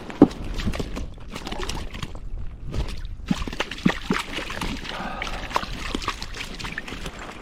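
Water splashing and sloshing in short, irregular splashes as a hooked trout thrashes at the surface while being played in, the sharpest just after the start.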